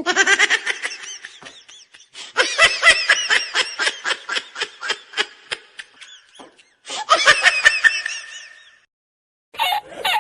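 Laughter sound effects: a person laughing in quick, pitched 'ha-ha-ha' pulses, about four or five a second. Three separate laughs follow one another with short gaps, and a fourth begins near the end.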